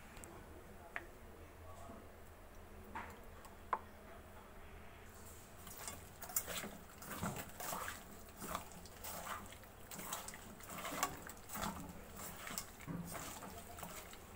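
Raw prawns being mixed by hand with mustard paste and spices in a steel bowl: a few light clinks at first, then from about five seconds in, repeated wet squelching strokes, one or two a second.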